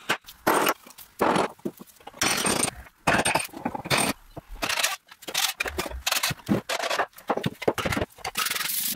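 Hammer blows and taps on rusty sewing-machine parts clamped in a vise, mixed with short bursts of metal scraping and rattling. They come in an irregular run of sharp knocks.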